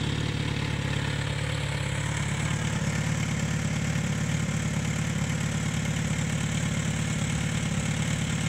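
Kawasaki Z900RS's inline-four engine idling steadily through a K-Factory CSR aftermarket exhaust.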